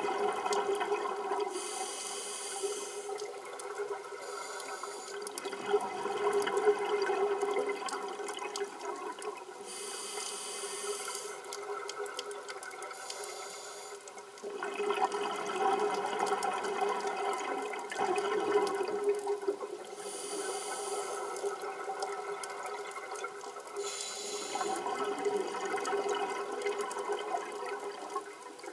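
A scuba diver breathing underwater through a regulator. A hissing inhalation comes every several seconds, and gurgling exhaled bubbles follow in between.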